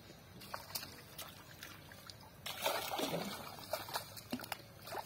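Pond water sloshing and trickling as a fine-mesh fishing net is lifted and gathered by hand, with scattered drips and small splashes. The sloshing grows louder about halfway through.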